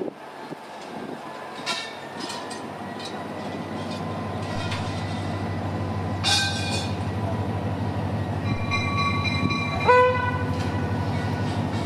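Diesel-electric locomotive DEL4425 hauling a freight train, its engine drone growing louder as it comes closer. It sounds its horn: shorter tones come around six and eight seconds in, and a loud, steady horn blast starts about ten seconds in.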